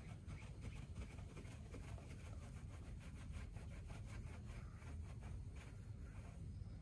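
Foam applicator pad rubbing liquid wax onto a travel trailer's painted side, a faint repeated swishing of short back-and-forth strokes over a low steady rumble.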